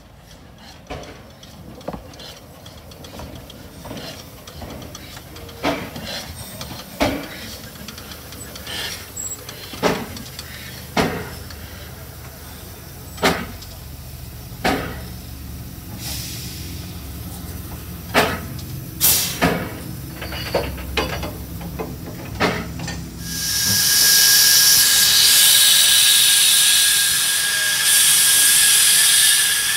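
Narrow-gauge steam tank engine No. 7 on the Vale of Rheidol line: scattered metallic clanks and knocks over a low rumble as it moves, then about 23 seconds in a loud, steady hiss of escaping steam takes over.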